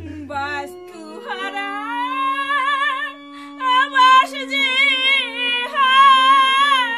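Music: a slow, high sung melody with wide vibrato on long held notes, climbing in steps at the start, over a steady low drone.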